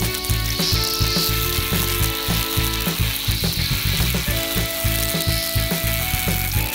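Background music with a steady beat and a melody of held notes that step between pitches.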